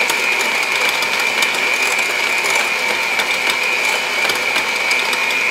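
Electric hand mixer running steadily at a constant speed, its beaters working through soft butter and shortening in a glass bowl; a steady whine.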